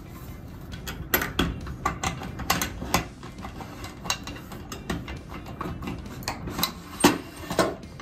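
Metal push bar of an Adams Rite MLR exit device being set back onto its scissor mechanism and housing: irregular clicks and light knocks as the bar is seated, with the loudest knock about seven seconds in.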